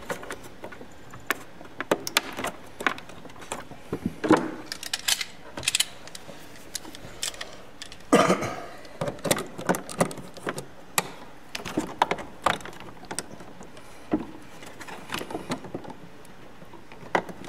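Irregular clicks, knocks and rattles of hands and channel-lock pliers working a rocker switch out of a plastic switch panel, with wire connectors being pulled off it. A louder clatter comes about eight seconds in.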